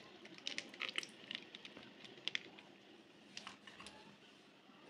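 Faint, scattered soft clicks and squishes of yogurt being spooned into a bowl.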